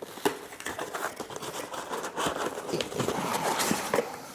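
Packaging crinkling and rustling as a wrapped item is unwrapped by hand, with a few sharp snaps among the crackle.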